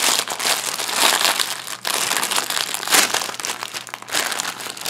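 A plastic courier mailer and a clear plastic product bag crinkling and rustling in the hands as the parcel is opened and the item pulled out, in irregular crackly bursts.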